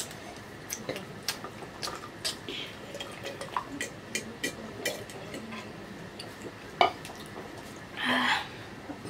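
Eating by hand from stainless steel tableware: scattered light clicks and clinks of plates, bowls and aluminium mugs, with wet sounds of rice being mixed by the fingers. A sharper knock comes about seven seconds in, and a short louder rustle or breath just after eight seconds.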